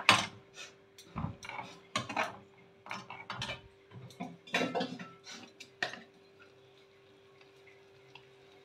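A steel spoon knocking and scraping against a metal kadai as a thick masala is stirred. The quick, irregular clinks go on for about six seconds, then stop.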